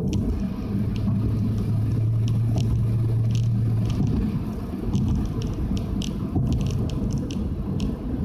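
Nissan Fuga 350GT's 3.5-litre V6 and one-off quad exhaust, heard from inside the cabin while cruising, with road rumble. The steady low drone of the exhaust fades about four seconds in, leaving mostly road and tyre rumble.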